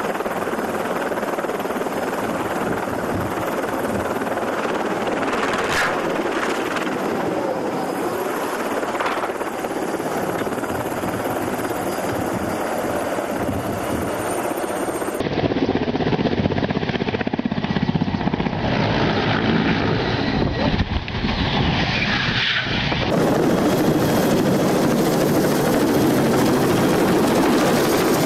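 Helicopter turbine and rotor noise, steady and dense, changing in character abruptly twice as one recording gives way to another.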